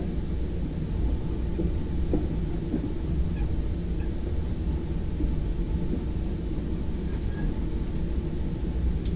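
Steady rumble of a moving commuter train heard inside a bilevel passenger car: the wheels running on the rails and the car body riding over the track, with a few faint clicks.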